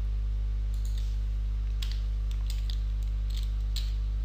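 Scattered light clicks of a computer keyboard and mouse, about eight irregular taps, over a steady low electrical hum.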